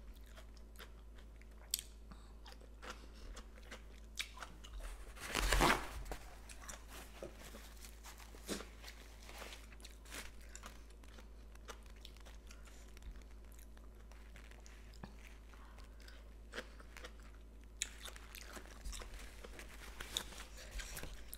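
Close-up chewing and crunching of papaya salad with raw vegetables, eaten by hand: soft, irregular crunches and mouth clicks, with one louder noise just past five seconds in.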